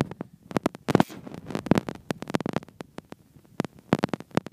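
Handling noise: an irregular run of quick knocks, taps and rubs from fingers on a phone as it is moved around.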